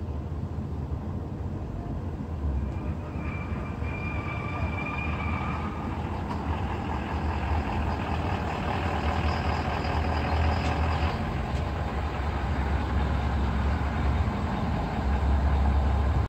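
Ford F-450 Super Duty pickup's 6.7-litre Power Stroke V8 turbo-diesel running as the truck drives slowly closer, a steady low rumble that grows louder toward the end.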